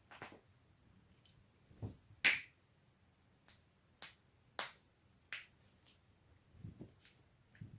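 Human joints cracking: a string of sharp pops and cracks, the loudest a little over two seconds in, with a couple of dull low thumps among them.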